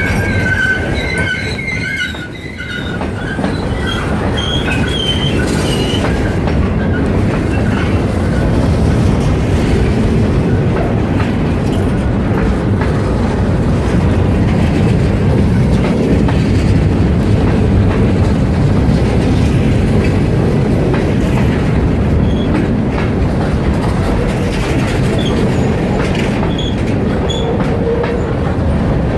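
Freight train rolling past: a steady rumble of cars and wheels on the rails, with a high wheel squeal during the first few seconds.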